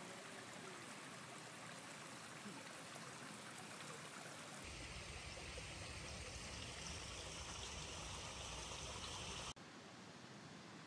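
Steady rush of running water. About halfway in it changes abruptly to a fuller sound with more low rumble, then drops back near the end.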